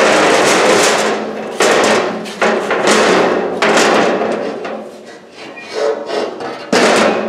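Diamond-plate ramp panels of a Harbor Freight motorcycle lift table banging and rattling as they are handled and set in place on a concrete floor: a string of loud metal clanks, about five or six, each ringing briefly.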